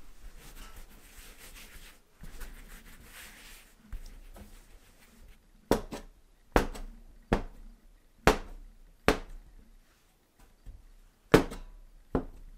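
Metal bench scraper cutting a rope of gnocchi dough on the counter: seven sharp knocks of the blade against the countertop, roughly one a second. Before them come a few seconds of soft rubbing as the dough is rolled by hand.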